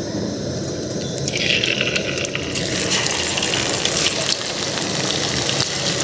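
Hot oil in a kadhai beginning to sizzle and crackle about a second and a half in, as handfuls of onion and okra pakora batter are dropped in to deep-fry. It runs over a steady low rush.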